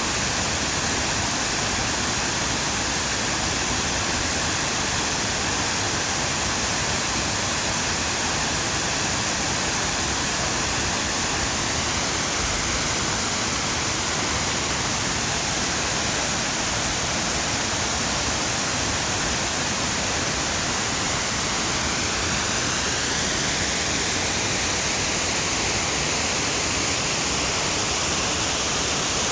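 Waterfall heard from its base: a steady, even rush of falling water with no let-up.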